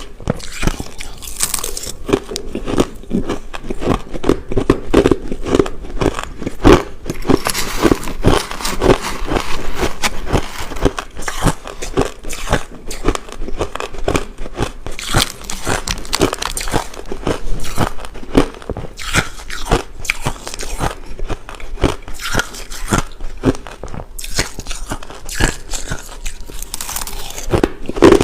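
Close-up crunching and chewing of crushed ice: a dense, continuous run of sharp crackling bites as the ice is broken between the teeth.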